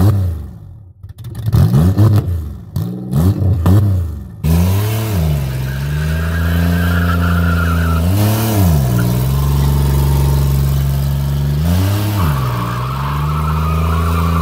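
A Buick sedan's engine revved in several quick blips. It then changes abruptly to the car driving with its engine running steadily, the pitch rising and falling back twice.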